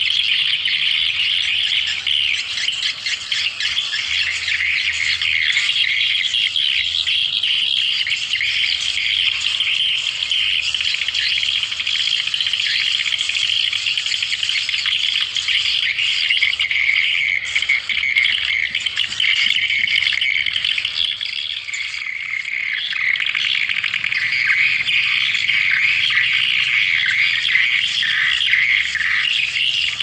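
Swiftlet lure call: a dense, unbroken chatter of high twittering chirps, the sound played from swiftlet houses to draw swiftlets in to roost and nest.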